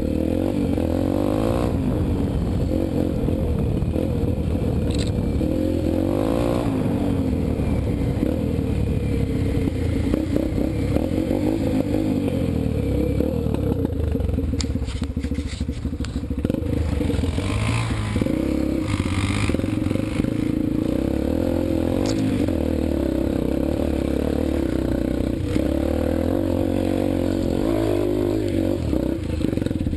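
A 2003 Yamaha TT-R125LE dirt bike's single-cylinder four-stroke engine running under constantly varying throttle on a rough trail, its pitch rising and falling as the rider rolls on and off. Bursts of clattering and scraping come about halfway through.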